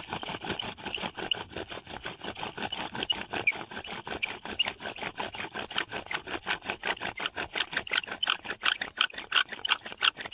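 Bow drill spun hard and fast: the wooden spindle squeaking and scraping in the wooden hearth board with every stroke of the bow, in a rapid, even rhythm that grows louder toward the end.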